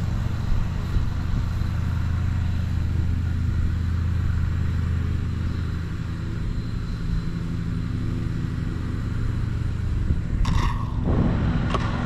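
Wind buffeting the microphone on a windy day, a steady low rumble; the plane's motor is off for a dead stick landing. A brief louder sound comes near the end.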